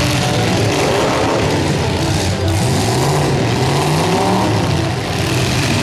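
Demolition derby cars' engines running and revving together, one of them rising steadily in pitch as it speeds up from about two and a half seconds in.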